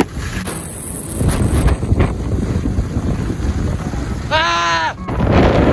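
Wind buffeting the microphone of a camera carried by a skier moving downhill, with skis running over the snow. A person gives one short yell about four and a half seconds in.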